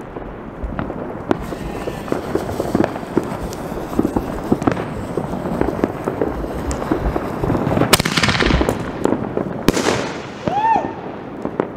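Fireworks going off: a steady patter of many small pops from fireworks all around, then two sharp, loud bangs about eight and ten seconds in as an aerial shell is fired from its mortar tube and bursts overhead.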